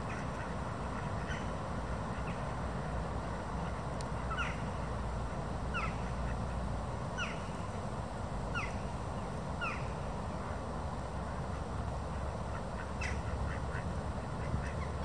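Waterside outdoor ambience: a steady background hiss with a series of five short animal calls, each falling in pitch, about one every second and a half through the middle, and a few faint ticks near the start and end.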